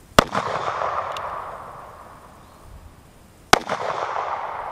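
Two shots from a Ruger Blackhawk single-action revolver in .357 Magnum, about three seconds apart. Each is a sharp crack followed by a long echo that fades over a second or two.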